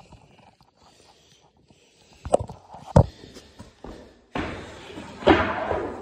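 Footsteps of work boots on a hardwood floor: two sharp knocks about two and three seconds in, then from about four seconds a louder stretch of heavy thumps over a rushing noise.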